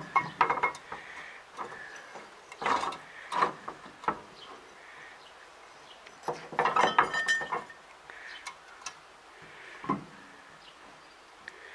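Metal clinks and scrapes of a wrench working the bolts of a roller's bearing housing on a Claas Rolant 46 baler, in short bursts: at the start, about three seconds in, and a longer run of clicks about six to seven seconds in.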